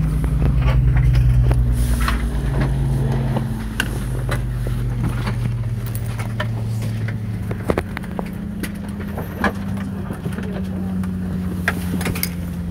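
Steady low hum of an Airbus A319's cabin after arrival, made of several level tones that shift slightly in the first few seconds. Scattered sharp clicks and knocks sound over the hum.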